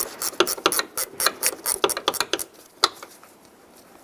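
Socket wrench ratchet clicking in quick, uneven strokes as it tightens the 10mm hinge-to-door bolts. The clicking stops about two and a half seconds in, with one last click shortly after.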